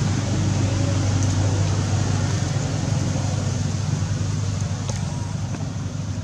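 A steady low mechanical hum, with a steady high hiss above it and a few faint ticks.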